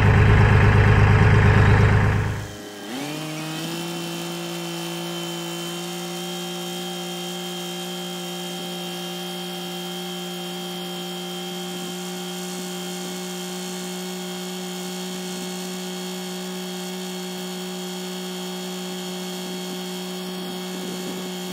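Kioti CK3510 compact tractor's three-cylinder diesel running at steady throttle while driving, a steady whining drone that rises in pitch and settles about three seconds in. Before it, a loud rumble stops abruptly about two seconds in.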